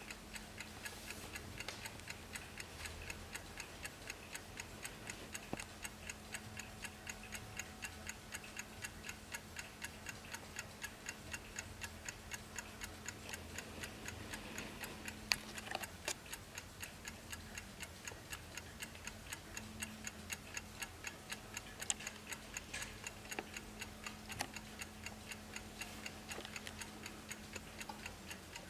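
Key-wound mechanical movement of a vintage 1950s Wehrle wall clock ticking at a fast, even beat, several ticks a second. A low steady hum runs underneath, and a few louder clicks stand out.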